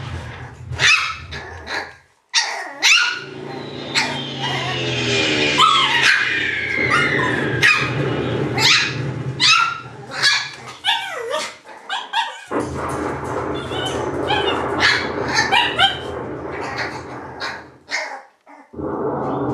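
Shiba Inu puppies barking and yipping in many short, high yelps with quick rises and falls in pitch, over a steady low hum. The sound cuts off abruptly a few times.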